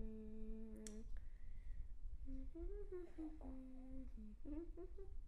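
A boy humming a wordless tune: a string of held notes that step up and down in pitch, with a short sharp click about a second in.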